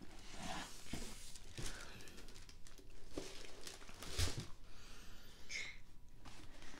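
Rustling and handling noises as a leather handbag is lifted out of its tissue paper and packaging and moved about, with a thump about four seconds in.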